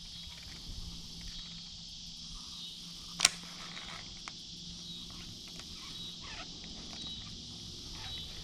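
Steady chorus of insects, a continuous high-pitched hum, with one sharp click about three seconds in.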